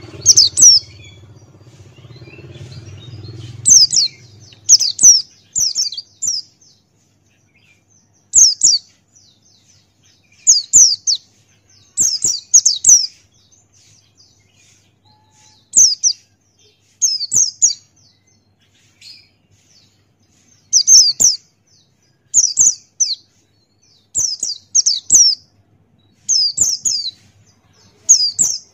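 Buxtoni white-eye (pleci) singing: short, high-pitched, falling chirps in quick clusters of two or three, repeated every second or two.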